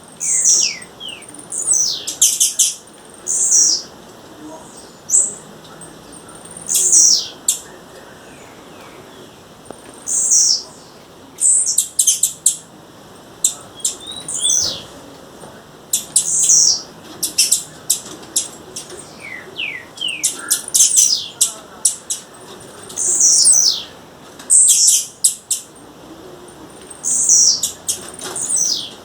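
Blue-black grassquit (tiziu) calling: short, high, downward-sliding notes repeated every two to three seconds, with clusters of sharp clicks between them.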